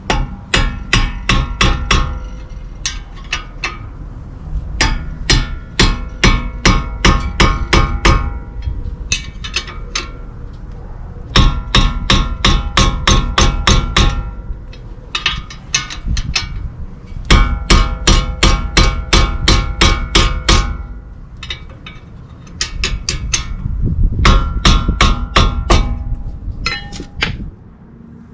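Impact wrench hammering in about nine bursts of rapid impacts, each up to a few seconds long with short pauses between, running down and tightening the brake caliper mounting bracket bolts.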